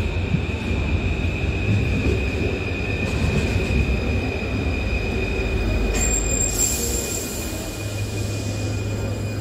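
Paris Métro line 5 MF 01 train arriving and braking to a stop at the platform. It gives a low rumble with a steady high-pitched wheel squeal. A higher squeal cuts in about six seconds in as it halts, and after that the standing train hums.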